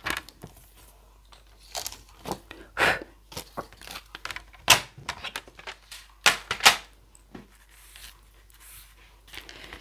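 Card stock and a paper trimmer being handled: the trimmer's blade drawn along the card to cut off a strip, then the card rustling, scraping and tapping as it is lifted and set down. A scatter of short rustles and clicks, the loudest a few sharp taps around the middle.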